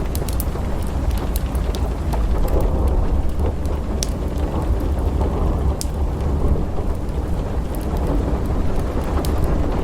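Thunderstorm ambience: steady heavy rain over a continuous low rolling thunder rumble, with sharp crackling pops from a wood fire every second or two.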